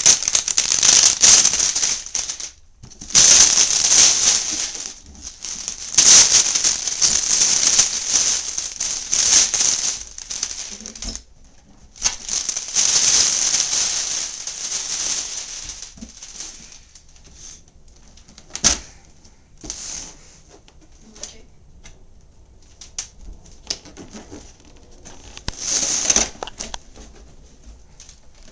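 Plastic shrink-wrap being torn off a cardboard box and crinkled, in long loud stretches over the first half, then scattered crackles and a sharp click as the box is handled.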